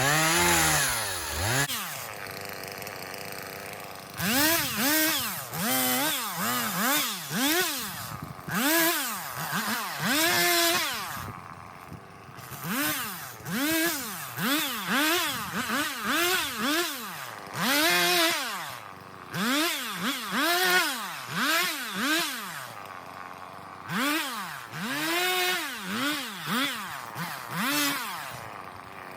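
Two-stroke chainsaw revved again and again, its pitch climbing and dropping about once a second, settling back to a lower idle a few times between runs.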